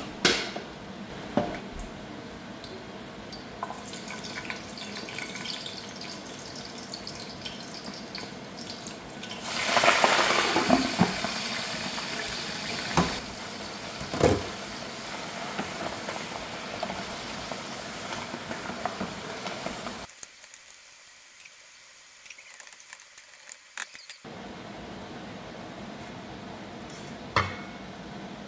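Leafy greens sizzling in a hot frying pan: a steady hiss that surges loudly about ten seconds in, with a few sharp clinks of a spatula and a glass pot lid. The hiss drops away abruptly for about four seconds, two-thirds of the way through, then returns.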